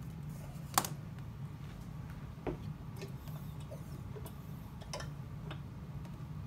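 A few separate sharp clicks and light taps at an altimeter test bench, the loudest about a second in, over a steady low hum.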